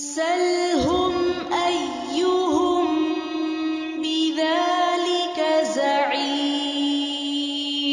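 Melodic Quran recitation: a single reciter's voice holds long drawn-out notes, bending the pitch up and down in ornamented glides, with short breaths between phrases.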